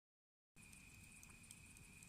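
Faint outdoor ambience that cuts in suddenly about half a second in: a low rumble, a steady high-pitched whine and a few faint scattered ticks.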